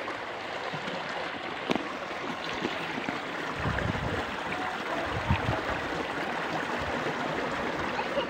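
Water rushing and splashing steadily along a narrow irrigation ditch, pouring through a gap beside a concrete block and over rocks. A few soft low thuds come in the middle.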